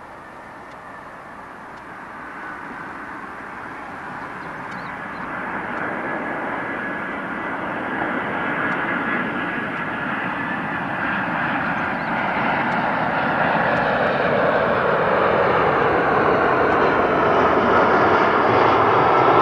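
Jet airliner's engines, a broad roar that grows steadily louder as the aircraft approaches and comes close.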